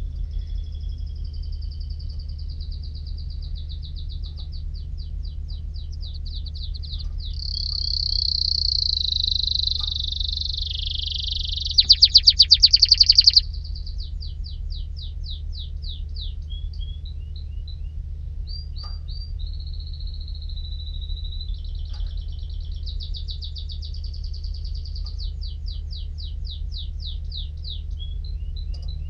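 Domestic canary singing a long, varied song of rapid repeated trills and held whistled notes, with a very loud, fast trill about twelve seconds in. A steady low hum runs underneath.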